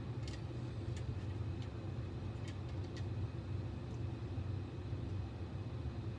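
Steady low room hum with a few faint, scattered clicks of small parts being handled.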